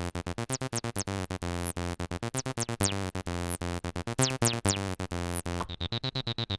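TB-303-style acid bass line: a sequenced synth pattern of fast, short staccato notes with a bright, resonant filter and a few accented notes that stand out louder about four seconds in.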